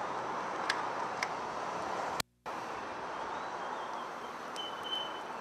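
Steady garage-bay background noise with two light clicks about a second in as the flush machine's clamps go onto the car battery terminals, and a brief dropout in the sound midway. Near the end a faint, short, high electronic tone sounds.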